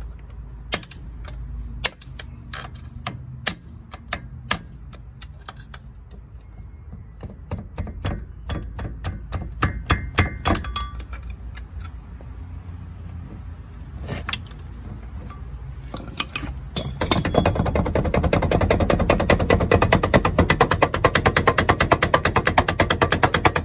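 Hand sledge striking a chisel against a truck's wheel hub to drive out the old wheel seal: sharp metal-on-metal knocks at uneven spacing, bunching closer together midway. For the last third a much louder, dense, rapid rattle takes over.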